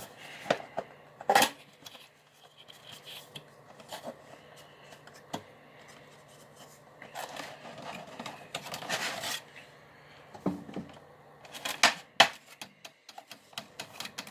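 Cardboard box and plastic packaging of a Funko Pop figure being handled and opened: scattered sharp clicks and taps, with a longer rustle about seven to nine seconds in.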